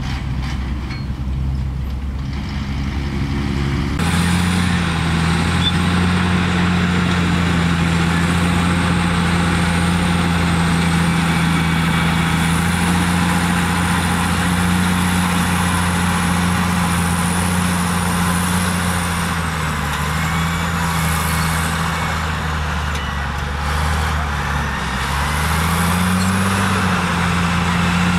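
A dump truck's diesel engine running as it tips its load, then, from about four seconds in, a crawler bulldozer's diesel engine running loud and steady as it pushes dirt, its pitch dipping briefly and rising again near the end, with a thin high whine above it.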